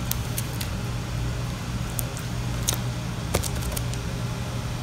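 Close-up handling of cucumber slices and scotch tape on cardboard: scattered small clicks and crinkles, over a steady low hum.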